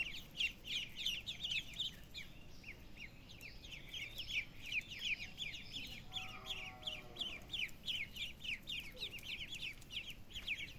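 A group of young poultry peeping: many short, high, falling chirps overlapping, several a second without pause. A fainter, lower call comes in about six seconds in.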